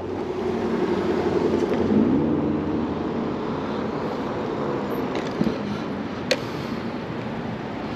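A car driving past, loudest about two seconds in, over steady traffic and wind noise from the moving e-bike. A single sharp click comes near the end.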